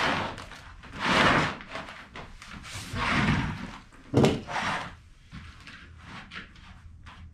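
Clear plastic shelf liner rustling and crinkling in several bursts as it is handled, with a single sharp knock about four seconds in and a few faint ticks after it.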